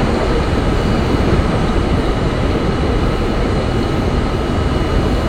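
R32 subway car running through the tunnel: a loud, steady rumble of wheels on rail and traction motors, with faint steady whine tones above it.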